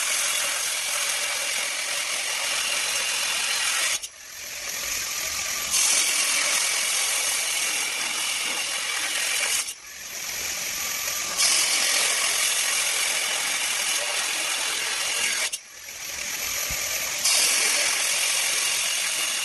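4-inch angle grinder's abrasive disc cutting a 22 mm steel bar: a loud, high, hissing grind. Three times, about every six seconds, it drops off sharply, builds back up, then jumps louder and harsher as the disc bites into the steel again.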